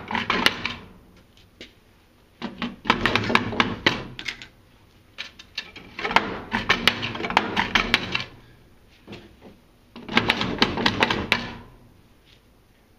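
Wooden sliding chicken-coop door clattering in its wooden frame as it is moved, in four bursts of rattling and knocking, each about one and a half to two seconds long.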